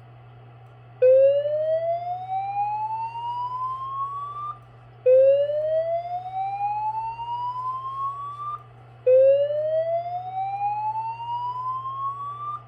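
System Sensor SPSR fire alarm speaker strobe sounding the slow-whoop evacuation tone: three rising sweeps, each climbing steadily in pitch for about three and a half seconds, about a second apart, over a faint steady low hum. This whoop is the alert signal that leads into a recorded voice evacuation message.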